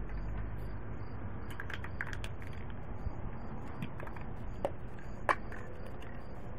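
Handling noise: a few light crackles and clicks, the sharpest about five seconds in, over a steady low background hiss.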